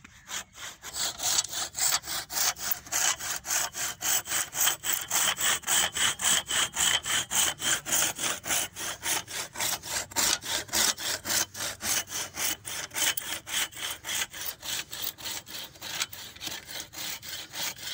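Hand saw cutting through a fresh green tree branch, in quick, even back-and-forth strokes about four a second.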